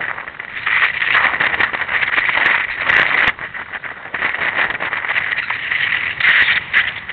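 Wind buffeting the camera microphone: a loud, rough, gusting rush with crackle, easing briefly about three seconds in and then picking up again.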